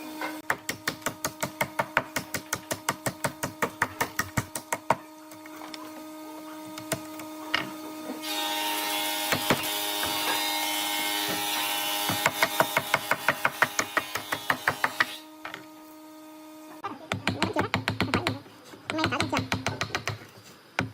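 Woodworking machine running with a steady hum and rapid, even ticking, about six ticks a second. About eight seconds in a louder hissing noise joins for several seconds, and near the end a faster clatter takes over.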